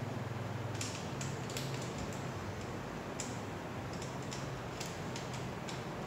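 Light, irregular metallic clicks and ticks from a small hand tool working the bolts of a mountain bike's disc brake caliper during a pad adjustment, over a steady low hum.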